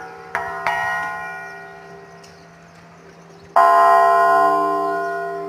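Bells ringing: two strikes in quick succession about a third of a second in, their ringing fading away, then a louder strike about three and a half seconds in that rings on.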